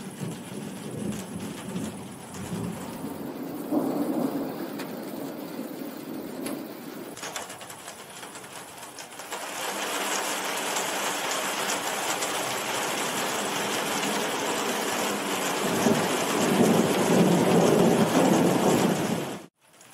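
Heavy rain with rolling thunder. Low rumbles come near the start and about four seconds in. The rain grows heavier about ten seconds in, and a longer, louder rumble of thunder near the end cuts off suddenly.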